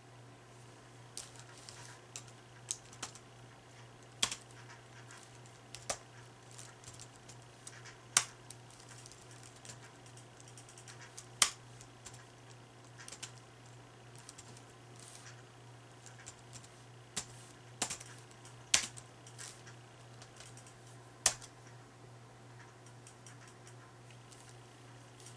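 Typing on a ThinkPad laptop keyboard with knit-gloved fingers: irregular, unhurried key clicks with pauses, and a handful of sharper, louder key strikes scattered among them.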